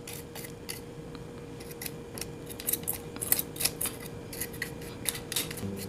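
Small cleaning brush scrubbing hair clippings out of the open head of a three-head rotary electric shaver: a long run of short, irregular bristle strokes against plastic.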